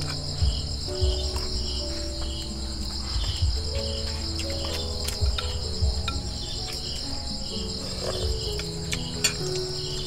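Night insects, crickets among them, trilling steadily with a chirp pulsing about twice a second, over soft background music with a slow melody. A few faint clicks are scattered through it.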